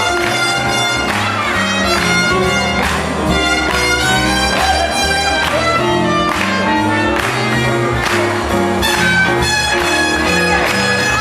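Swing jazz music with a steady beat, playing for the dancers.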